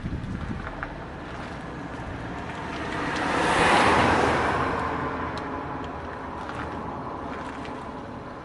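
A vehicle passing by. Its noise swells to a peak about four seconds in and then fades away.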